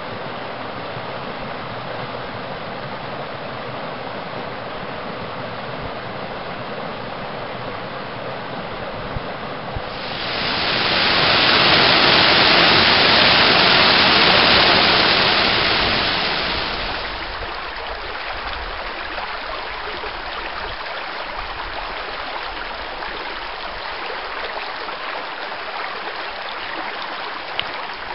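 Water of a rocky canyon creek rushing over small cascades and riffles, a steady flowing noise. For about six seconds midway a waterfall pouring down a narrow rock chute is much louder, then the steady creek sound returns.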